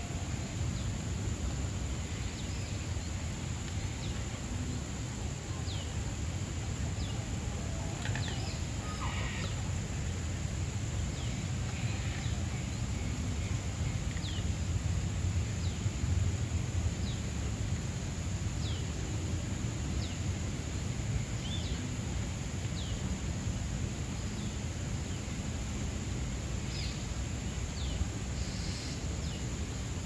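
Steady low rumble of outdoor background noise, with short, high, falling bird chirps scattered every second or two.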